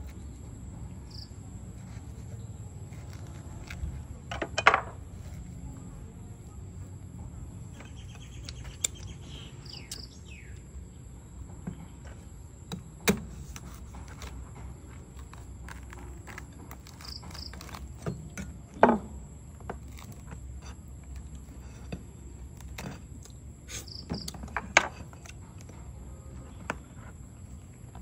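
Knife and cleaver working a durian open on a wooden surface: four loud sharp knocks several seconds apart, with lighter ticks between, as the blade chops into the spiky husk. Under it, a steady high-pitched drone of crickets.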